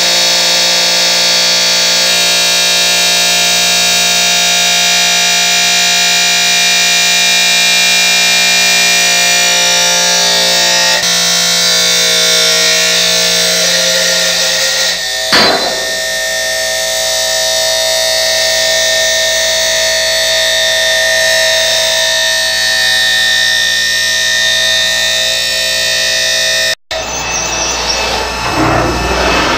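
Robot-held abrasive cut-off disc cutting femoral castings off their casting tree: a loud, steady, high-pitched screech made of many tones, with one brief sharp burst about halfway through. Near the end it cuts off and gives way to a lower, more uneven machine sound.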